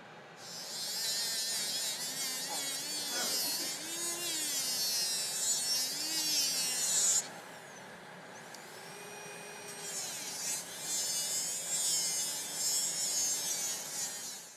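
Dental lab handpiece spinning a coarse brown trimming disc, grinding the edge of a thermoformed plastic anti-snore appliance, with a high gritty hiss over a motor whine that wavers with the load. It grinds for several seconds, stops suddenly, and starts again after a short pause.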